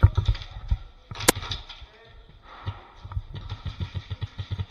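Footsteps and gear knocks of an airsoft player moving on a concrete floor: a run of short thumps that comes faster in the second half. One sharp crack sounds about a second in.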